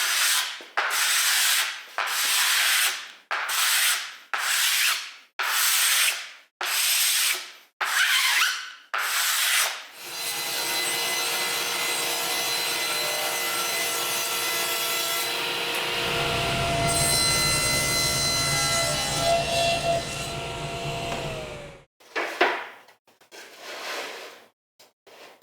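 Hand scraper pulled in repeated strokes along the glued edge joint of a thin cherry panel, about ten strokes in the first ten seconds, scraping the dried glue flush. Then a power tool runs steadily for about twelve seconds and winds down, and a few more scraping strokes follow near the end.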